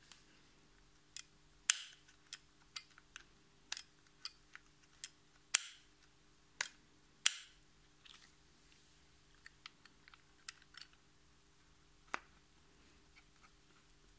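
Irregular sharp clicks and knocks of the opened plastic housing and internal parts of a Bosch GWS 18V-15 C cordless angle grinder being handled and turned by hand, about a dozen in all, loudest a couple of seconds in and around the middle.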